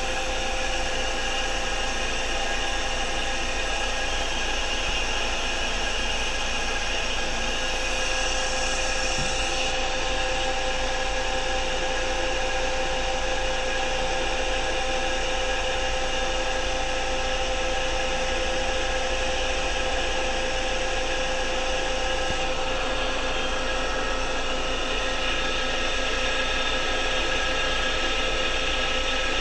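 Electric motor running steadily on a variable frequency drive under load test, a constant whine made of several steady tones over a hum.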